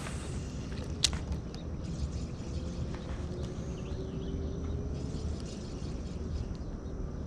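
Steady low rumble of wind on the microphone outdoors on a river, with one sharp click about a second in.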